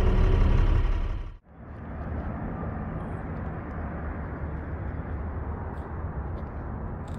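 Low rumble of a semi truck cab that drops out sharply about a second in, followed by a quieter, steady low rumble with hiss.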